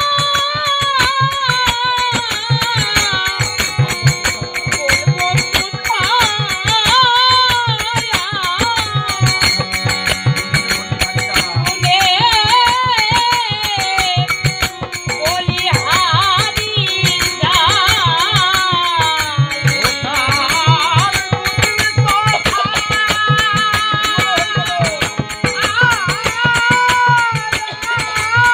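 Bengali devotional folk music (Hori Songit): a wavering melody line over a steady drum beat and hand percussion.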